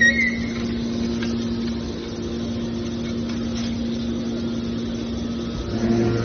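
Hydraulic scrap aluminum baler's power unit running with a steady mechanical hum. A brief high squeal comes at the very start, and the hum grows louder and deeper near the end.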